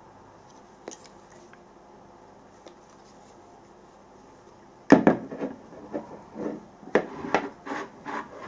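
Metal food cans set down and shifted on a wooden tabletop: a loud knock about five seconds in, then a run of knocks and scrapes as the cans are arranged.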